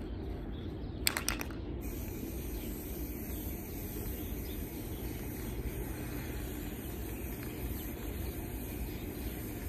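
Aerosol spray can spraying a license plate frame: a few quick clicks about a second in, then a steady hiss of spray that keeps going.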